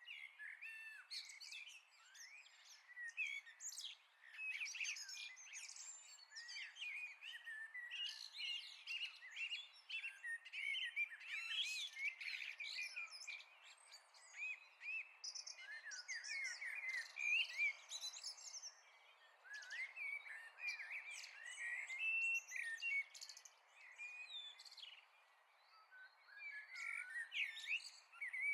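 A chorus of many songbirds singing and chirping at once, quick high overlapping calls and trills with short lulls, and no low sound beneath them.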